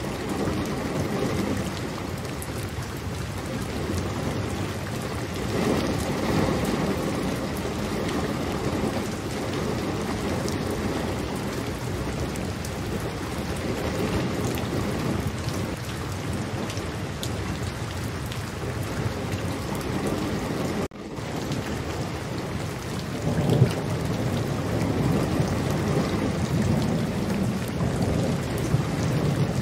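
Steady rain falling, with low rolling thunder that swells for a few seconds early on and again more strongly over the last third. The sound drops out for an instant about two-thirds of the way through.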